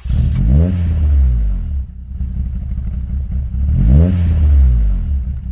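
Car engine revving over a steady running note, with two quick rises in pitch about three seconds apart, played as the sound of a logo end card.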